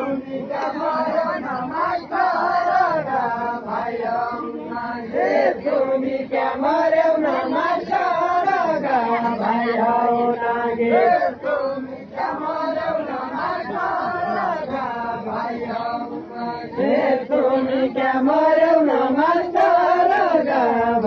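A crowd of villagers chanting a traditional song together, many voices in unison, with long held notes.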